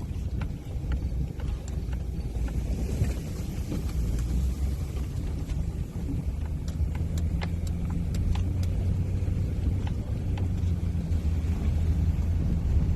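A vehicle engine running with a steady low rumble, with scattered light ticks and rattles over it.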